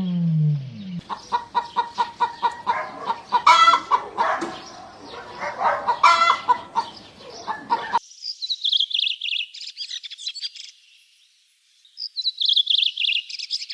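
Bird calls: a low falling call in the first second, then a long run of quick repeated clucking calls. After a sudden change, high rapid chirping comes in two bouts.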